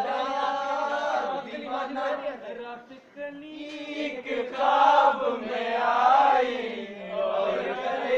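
A group of men singing together without instruments, with a short break about three seconds in before the singing comes back louder.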